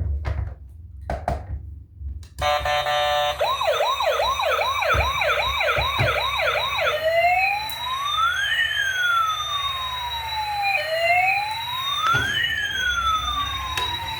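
A few clicks of a toy being handled, then about two seconds in a toy vehicle's electronic siren sound chip switches on. It gives a quick run of stepped beeps, then a fast yelp of rising and falling sweeps, then slows to a long wail that rises and falls.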